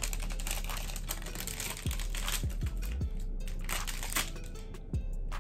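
Crinkling and rustling of a candy wrapper being handled and opened, over background music with a few deep bass thumps.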